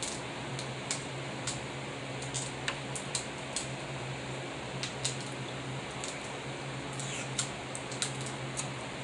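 Snow crab leg shells cracking and snapping as they are broken open, in scattered sharp clicks at irregular intervals over a steady background hum.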